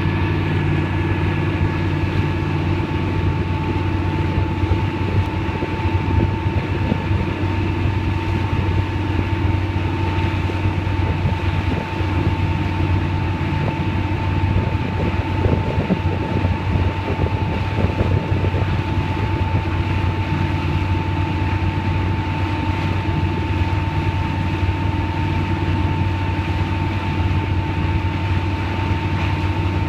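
Wakesurf boat's engine running steadily under way, a constant low hum with a thin steady whine above it and a rush of noise over it.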